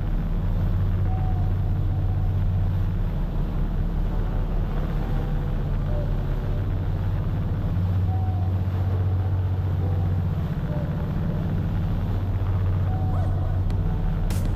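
A boat's engine running steadily under way: a low, even drone.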